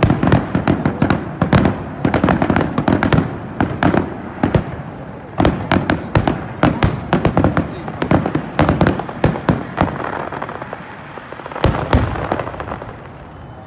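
A fireworks finale: a dense, rapid barrage of shell bursts, many bangs a second, over a continuous rumble. It thins out in the last few seconds, with one last loud bang about twelve seconds in before the noise dies away.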